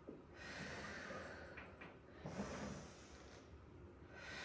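A woman breathing audibly in and out as she pushes and pulls a Pilates reformer carriage. There are three long, hissy breaths, each about a second or more long.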